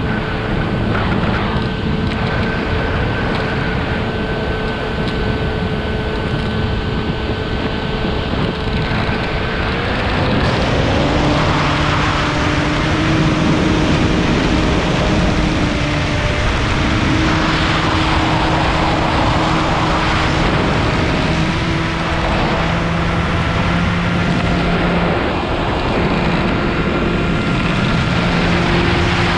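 Multirotor drone's electric motors and propellers running with rushing wind. For the first ten seconds it holds a steady pitch, then it changes to lower tones that shift in steps every few seconds as the drone speeds up and maneuvers.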